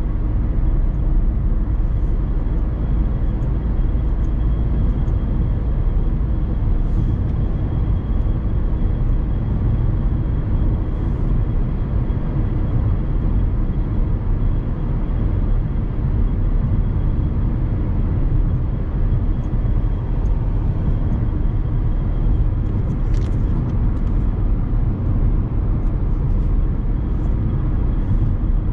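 In-cabin sound of a Dacia Sandero Stepway 1.5 dCi four-cylinder turbodiesel cruising steadily, a low engine drone mixed with tyre and road noise. A faint steady high whine and an occasional light tick sit on top.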